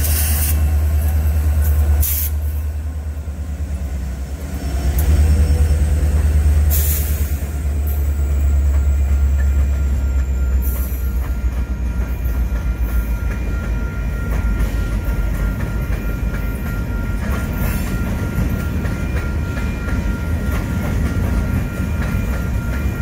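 Freight train cars rolling past at close range: a steady deep rumble of steel wheels on rail, with scattered sharp clicks and a faint high wheel squeal at times.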